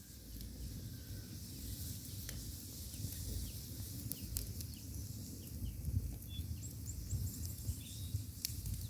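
Outdoor rural ambience: small birds chirping in short calls, over a steady low rumble and a few sharp clicks.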